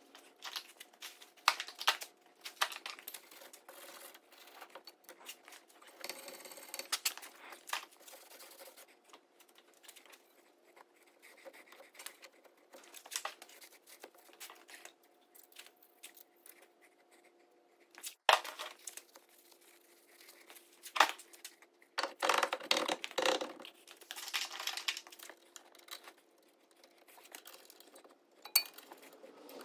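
Hand work on a car's bare steering knuckle: stretches of scrubbing and wiping with a rag, with scattered sharp metal clicks and clinks.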